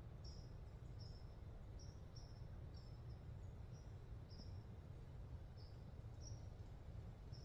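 Quiet woodland ambience: a small bird gives short, high chip notes at irregular intervals, about one a second, over a faint, steady low rumble.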